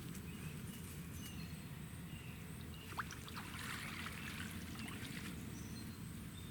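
Faint outdoor ambience: trickling water over a steady low rumble, with brief high chirps and a single click about three seconds in.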